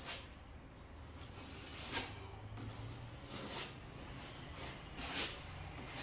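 Metal putty knife scraping filler across a drywall patch: a handful of short scraping strokes one to two seconds apart, over a faint steady low hum.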